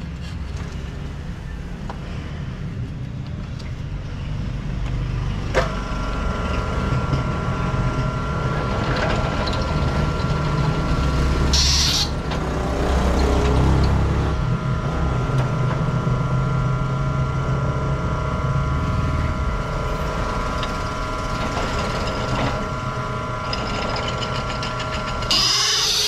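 Bench drill press switched on about six seconds in, its motor running with a steady whine. The bit gives short high-pitched screeches as it cuts, about halfway through and again near the end, drilling a worn gear-shift control part whose old hole has gone oblong.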